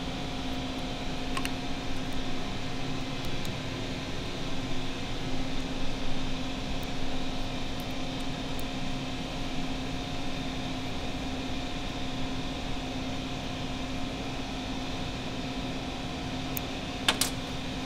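Steady mechanical hum, like a fan or air handler, holding one low steady tone throughout, with a brief faint metallic click near the end.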